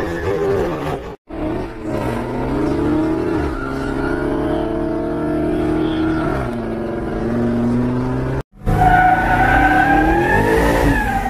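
Car engine held at high revs with tyres squealing through a burnout, the pitch wavering up and down. The sound breaks off briefly about a second in and again near eight and a half seconds, after which it is louder.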